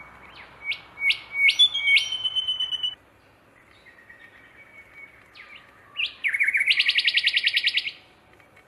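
Songbirds singing: a run of sharp rising notes over a held high whistle, then a fast, even trill of about a dozen notes a second near the end.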